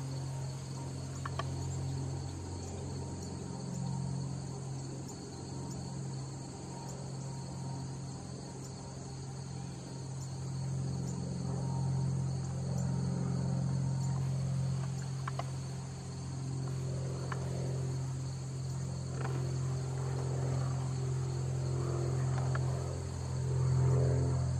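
Insect chorus: a steady high-pitched trill from crickets in the grass, over a low steady drone. Near the end, the low tones thicken and swell.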